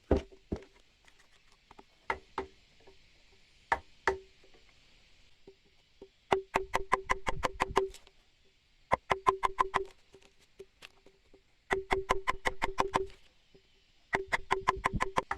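Rapid knocking on wood, in four runs of a second or two at about eight strikes a second, each strike with a short ring; a few single knocks come first.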